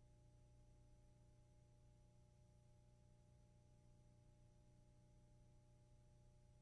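Near silence: a faint steady low hum with a few thin constant tones and a light hiss underneath.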